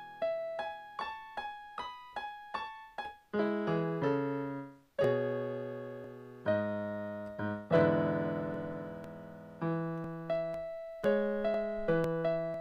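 Solo piano music: a quick figure of single notes, about two or three a second, gives way to slow, sustained chords, the loudest about eight seconds in, then the note figure returns near the end.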